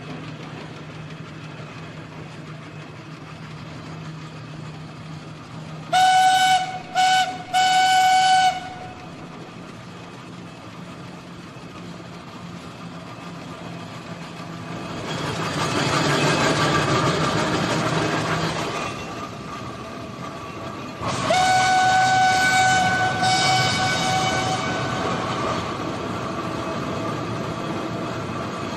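Steam whistle of a 1928 Fowler B6 road locomotive: three short blasts, then one longer blast about two-thirds of the way through, all on the same single pitch. The engine runs underneath throughout, growing louder for a few seconds in the middle.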